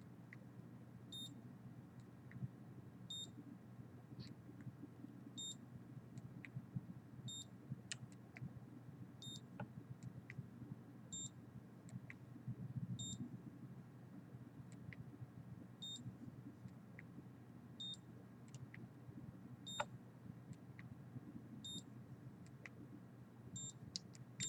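A handheld electronic meter giving short, high beeps about every two seconds, over a faint low hum.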